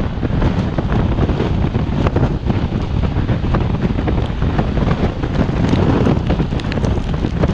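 Wind rushing over the microphone of a camera mounted on a moving recumbent trike, with frequent small knocks and rattles from the road.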